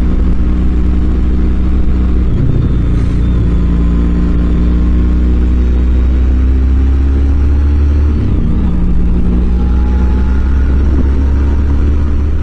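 Motorcycle engine running at cruising speed with wind and road noise, heard from the rider's seat; the engine note dips briefly and changes about eight seconds in, as at a throttle change or gear shift.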